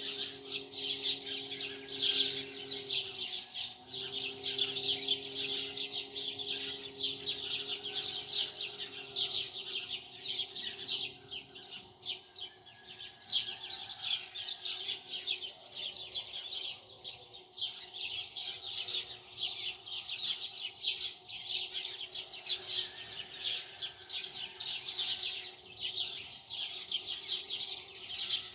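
Many small birds chirping without pause, a dense chatter of short, high, overlapping chirps.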